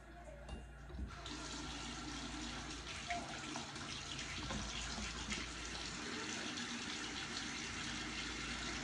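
Bathroom sink tap turned on about a second in, water then running steadily into the basin.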